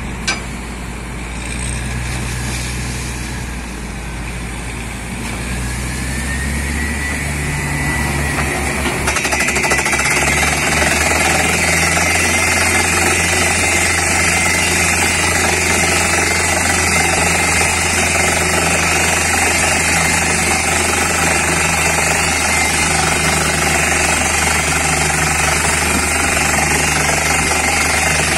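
Truck-mounted borewell rig drilling with a compressed-air down-the-hole hammer, its engine and compressor running. There is a dense, steady hammering hiss as air blasts muddy water and rock cuttings out of the hole. It builds up over the first ten seconds, then holds steady.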